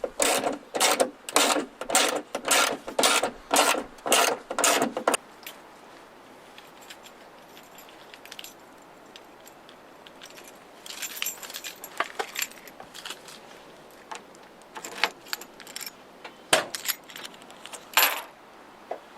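Metal hardware and hand tools clicking in a steady rhythm, about two to three strokes a second, for the first five seconds. This comes from work on the trunk latch and lock. After that come only a few scattered clicks and knocks.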